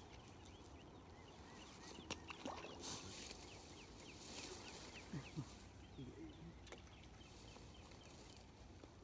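Faint outdoor ambience of many small birds chirping in short falling notes, with a couple of sharp clicks about two and three seconds in and a few lower sliding calls around the middle.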